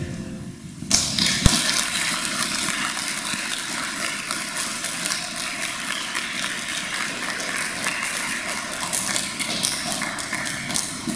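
Audience applauding: dense clapping that starts about a second in and carries on steadily, with a single sharp knock shortly after it begins.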